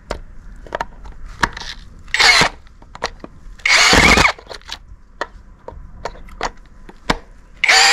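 CAT DX12 18-volt brushless cordless hammer drill backing a screw out of a log. Two short bursts of the motor come about two and four seconds in, with sharp clicks between them. Near the end the drill starts a steady run, its pitch rising.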